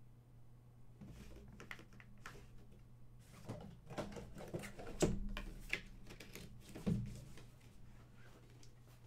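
Collectible figure boxes and packaging being handled and opened: a run of short rustles and clicks, with two louder knocks about five and seven seconds in.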